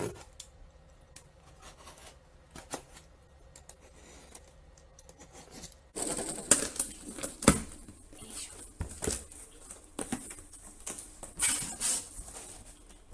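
A box cutter scraping and clicking along the packing tape on a cardboard box. About halfway through it gives way to louder tearing, rustling and cardboard scraping as the tape is pulled off and the flaps are opened.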